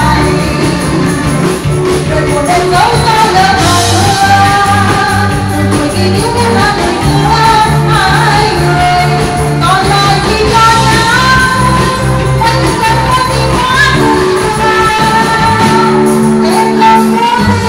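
Live band music with a sung melody over a steady, repeating bass line.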